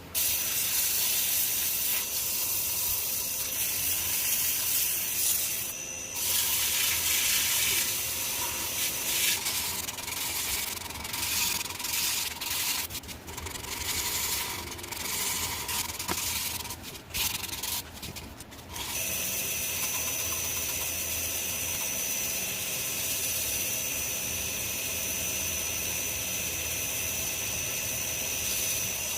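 Electric power sander working wood: a steady motor whine under a rasping of abrasive on wood, broken by a few short pauses, then running evenly through the second half.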